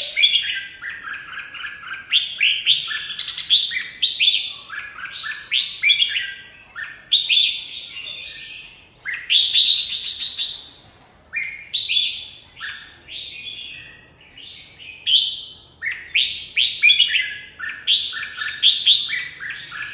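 Caged red-whiskered bulbul singing its competitive 'fighting' song: short, loud whistled phrases following one after another with barely a pause.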